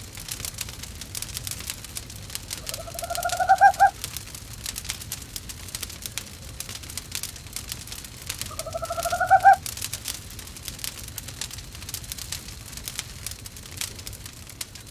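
An owl calling twice, about five seconds apart, each a rising call about a second long that grows louder and stops abruptly, over a crackling wood fire.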